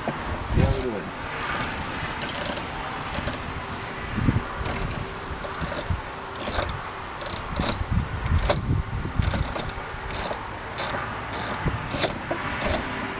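Hand ratchet clicking in short runs, about one every half second to a second, as a fastener in the door is loosened.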